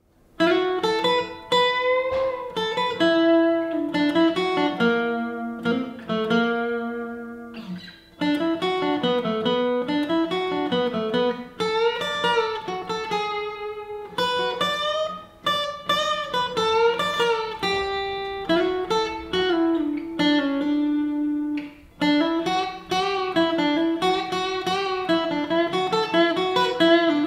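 Solo guitar music: a melody of plucked notes, each ringing and fading, played in phrases with short breaks between them.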